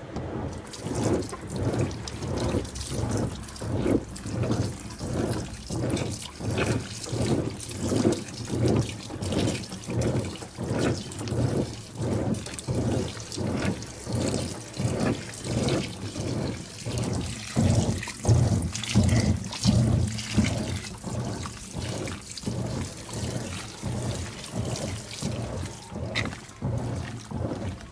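Washing machine agitating a wash load, water and clothes sloshing back and forth in a steady rhythm of about one to two strokes a second.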